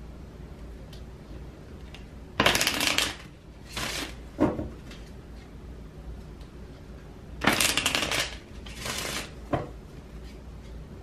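A deck of oracle cards being shuffled by hand. There are two short bouts of rapid card noise, about two and a half seconds in and again about seven and a half seconds in, each followed by a couple of softer shuffles.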